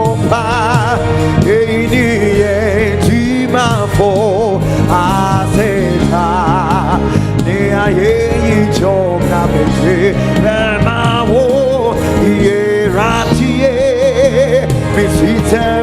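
Live gospel worship music: a singer holding wavering lines with strong vibrato over steady band accompaniment.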